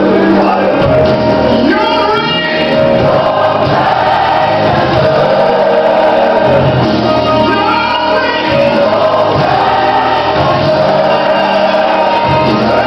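Gospel choir song playing loud: many voices holding long notes over a musical backing, with quick vocal runs about two seconds in and again about eight seconds in.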